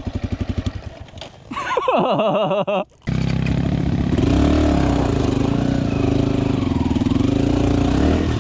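Yamaha WR155R dirt bike's single-cylinder engine idling with an even pulse, then a brief rev that falls away. After a short dropout about three seconds in, the engine runs steadily under light throttle as the bike rides along the trail.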